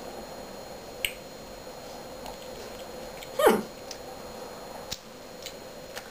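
Mouth sounds of a person eating ice cream: a few soft lip-smacking clicks while chewing. About halfway through comes a short vocal squeak that slides down in pitch.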